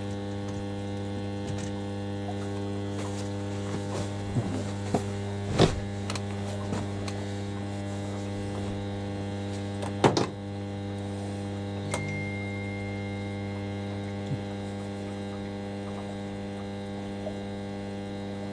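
Washing machine filling with water: a steady electrical hum, typical of the inlet valves, with a few light knocks. The fill is slow, with the two machines fighting for water.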